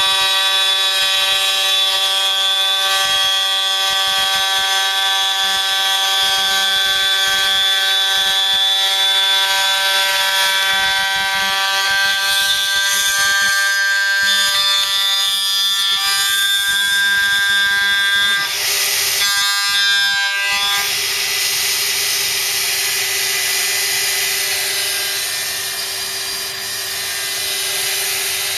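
Proxxon MF70 mini CNC mill's spindle whining steadily at high speed while its cutter machines a 1 mm carbon fibre sheet, with a hiss of cutting under the whine. About two-thirds in the sound changes briefly, and afterwards the hiss is stronger and the whine fainter.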